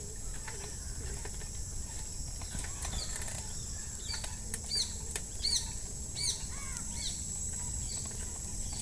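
A bird calling a series of short, arched, chirping notes, about one to two a second, through the middle of the clip. Underneath are a steady high-pitched whine and a low rumble.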